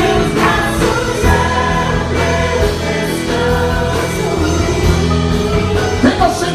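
Live Christian worship music: sustained chords and steady bass notes, with voices singing over them without clear words.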